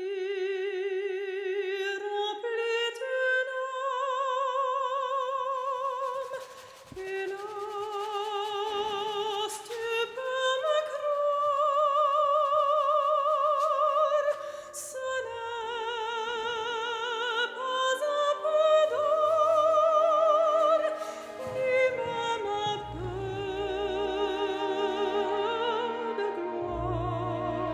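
Slow operatic music: a singing voice holds long notes with wide vibrato, moving from note to note in a slow melody. Deep bass notes join under it in the last few seconds.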